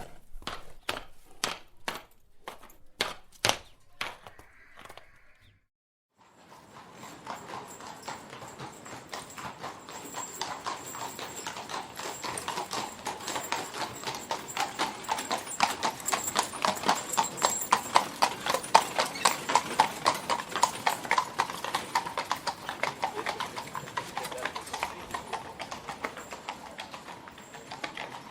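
Horse hooves clip-clopping at a walk, about two strikes a second. After a brief pause, a fast, dense run of hoofbeats starts, grows louder toward the middle and fades out, as horses going by at speed.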